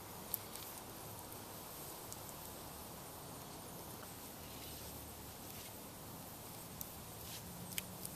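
A few short, sharp clicks and snaps, one just after the start and a couple near the end, over a faint steady outdoor hiss, from crackling wood in a small campfire or dry sticks being handled.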